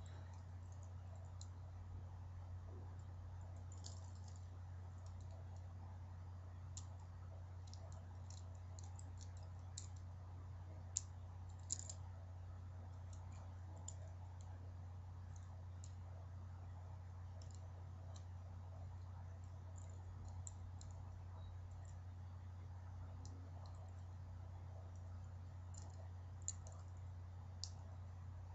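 Scattered light clicks of hard plastic Bakugan toy parts being handled and snapped together, a few louder ones about halfway through and near the end, over a steady low hum.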